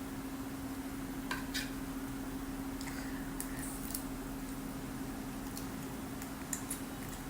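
Eating utensils clicking lightly against a bowl or plate, a few scattered taps, over a steady low hum in a small room.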